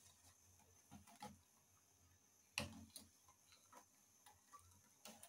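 A spoon stirring fruit and sugar syrup in a steel saucepan, giving a few faint clicks and knocks against the pan, the loudest about two and a half seconds in. The stirring keeps the sugar moving so it melts without catching on the bottom.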